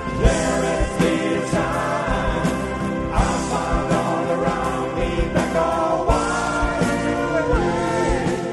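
A pop band playing a song, with several voices singing together over a steady drum beat.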